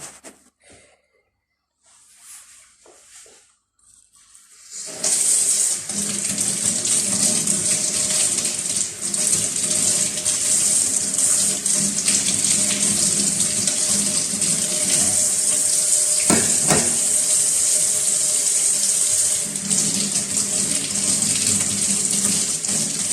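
Water tap turned on about five seconds in and running steadily into a sink while oregano leaves are rinsed under it.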